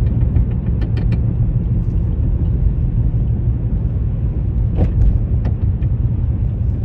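Car driving with a steady low rumble, and a few short knocks about a second in and again near five seconds. The owner says the car shakes when driven and makes a knocking sound whose cause he does not know.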